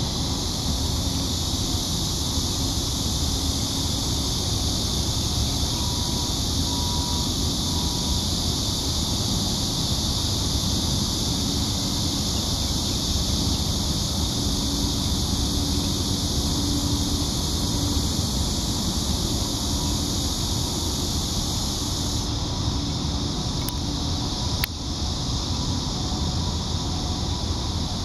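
Steady high-pitched insect drone, with wind rumbling on the microphone and a single sharp click about 25 seconds in.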